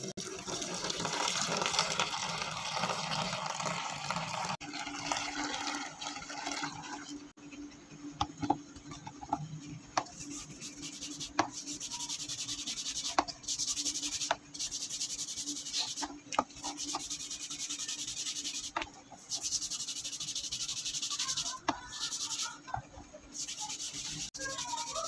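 Water pouring into a plastic tub of white powder, then a stiff brush scrubbing the rusty steel blade of an antique meat cleaver in the foaming solution. The scrubbing comes in runs of strokes with brief pauses and an occasional tick, taking off surface rust.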